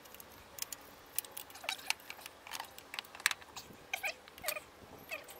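Scattered light clicks and taps of metal parts being handled as a diesel injection pump is worked into place in the engine valley, with a few short squeaks in between.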